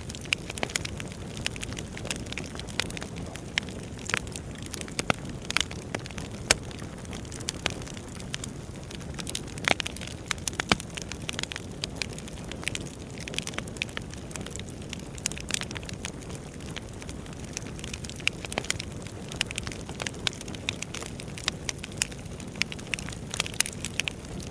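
Wood fire burning, with a steady low hiss and rush and frequent irregular sharp crackles and pops of burning logs.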